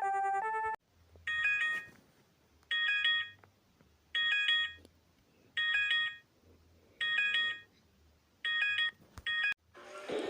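Electronic emergency alert tone: a short chord of high beeps repeats about every second and a half, six times, after a two-tone warbling alarm cuts off under a second in. A louder rising tone starts right at the end.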